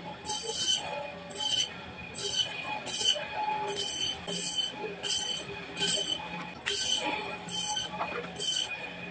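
Vertical meat-and-bone band saw running with a steady hum and a thin high whine, its blade cutting through a whole scaled fish in about eleven short screeching passes, a little over one a second, as steaks are sliced off.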